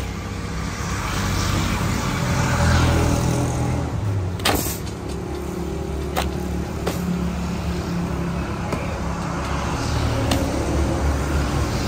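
Street traffic: motor vehicle engines running steadily, with a few sharp clicks near the middle.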